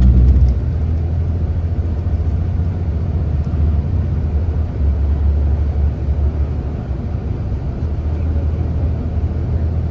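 Car road noise heard from inside the cabin: a steady low rumble of engine and tyres while driving.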